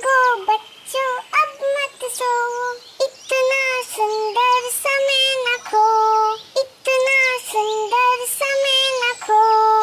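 A high, childlike voice singing a Hindi nursery poem in short held notes, one syllable after another, with small bird chirps higher up behind it.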